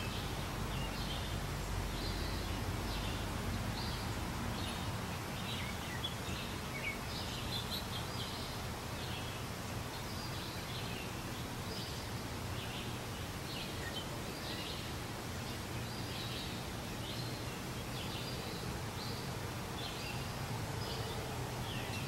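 Outdoor birdsong: many short, high chirps and calls from birds in the trees, scattered all through, over a steady background hum of environmental noise.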